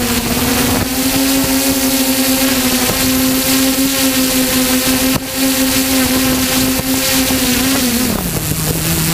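Small FPV hexacopter's electric motors and propellers droning at a steady pitch over heavy rushing prop-wash noise, heard from the craft's onboard camera. About eight seconds in the pitch slides down to a lower steady note as the throttle is eased off.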